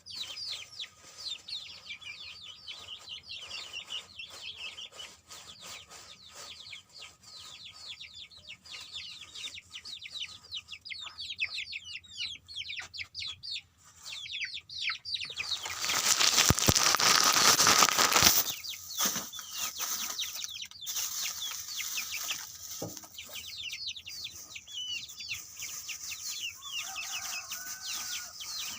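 A brood of young chicks peeping, with many rapid high chirps that fall in pitch. About sixteen seconds in, a loud rustling burst lasts a couple of seconds. Near the end come a few lower, clucking calls.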